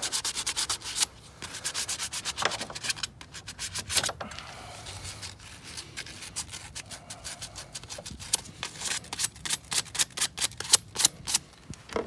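Folded 220-grit sandpaper rubbed back and forth on a corroded battery cable terminal, scouring the corrosion off to bare metal. Quick scratchy strokes in the first second, quieter rubbing through the middle, and another run of quick strokes near the end.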